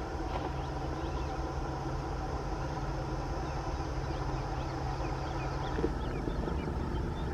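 Two-stroke EMD diesel engine of a WDP-4D locomotive working under load as it hauls an express train: a steady low drone, with faint short high chirps above it.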